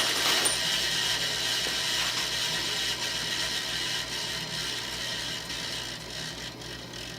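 Grinder's wheel running with a steady hiss and hum that slowly dies away over several seconds, as the motor coasts down.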